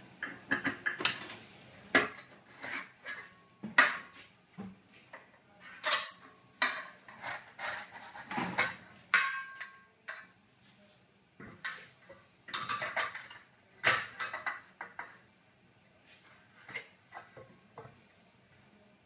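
Steel cable trunking being picked up, turned over and set down on a wooden workbench: a run of irregular light metal clanks and rattles, one ringing briefly about nine seconds in, thinning out after about fifteen seconds.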